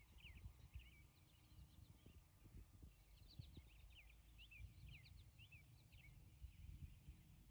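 Faint birdsong: many short chirps scattered throughout over near-silent outdoor quiet, with a faint low rumble underneath.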